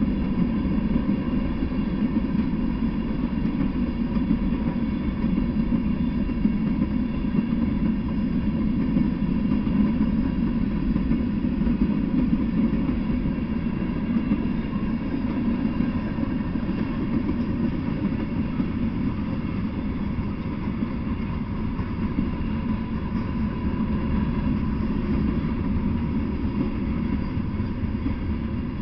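Freight train cars rolling past on the track: a steady, unbroken low rumble of wheels on rails.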